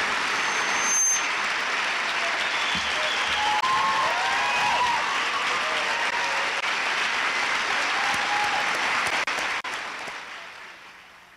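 A large audience applauding steadily, with a few voices calling out over the clapping, fading away near the end.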